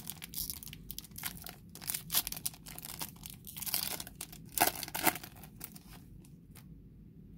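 Foil wrapper of a Topps Star Wars Chrome trading-card pack being torn open and crinkled by hand: a quick run of crackles and rips that stops about six seconds in.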